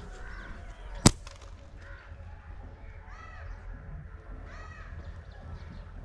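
A slingshot with thin rubber bands fires a steel ball about a second in: one sharp, loud snap. A bird calls twice, about a second and a half apart, near the middle.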